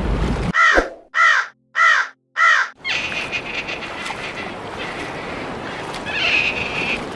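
An animal calling four times in quick succession, about one call every two-thirds of a second, each call short. Then a steady outdoor hiss with faint higher sounds.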